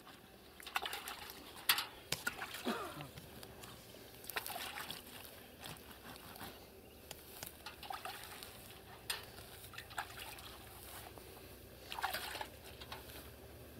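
Water splashing and sloshing as an inflatable rubber boat is rinsed out with water from a metal bucket: quiet, intermittent small splashes, trickles and handling knocks.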